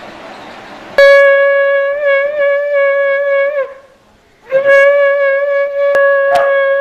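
Conch shell (shankha) blown in two long, loud blasts, the pitch wavering slightly, the second starting about half a second after the first ends.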